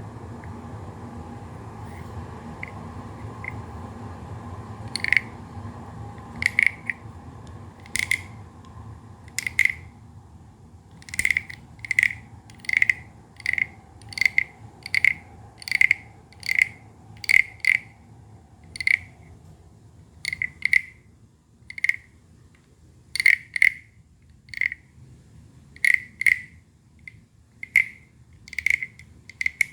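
Wooden frog scraper played stroke by stroke: short, sharp wooden clicks with a ringing tone, roughly one a second, starting a few seconds in. A low background rumble underneath fades out about two-thirds of the way through.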